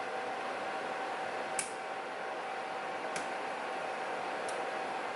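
Three short, sharp metallic clicks spread over a few seconds from lock picks working the wafers of an automotive door lock, over a steady background hiss.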